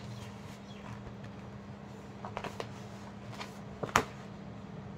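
Faint handling noise of a paper worksheet and marker, with a few light clicks and one sharp click about four seconds in, over a steady low hum.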